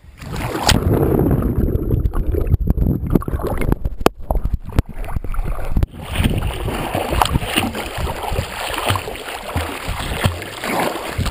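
Lake water splashing and sloshing right against the microphone of a waterproof action camera with no housing, held at the surface as a person moves into the water. A few sharp knocks come around the middle.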